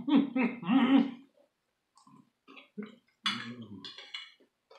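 A wordless voiced sound from a person for about the first second, wavering up and down in pitch, then after a short pause scattered small clicks and crunches from eating crunchy taco shells.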